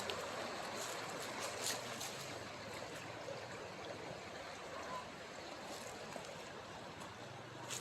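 River water flowing in a steady rush, with a few brief ticks over it.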